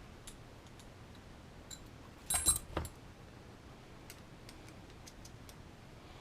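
Small hard kit parts and a tool being handled on a workbench. Scattered light clicks, with a brief rattling clatter of small parts a little over two seconds in.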